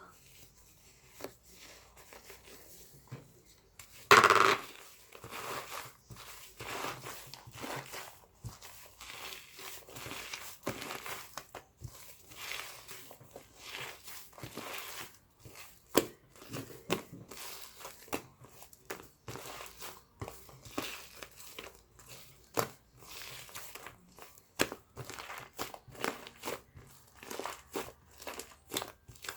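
Irregular crinkling and rustling, like paper or plastic being handled or torn, broken by many small clicks and knocks, with a loud burst about four seconds in.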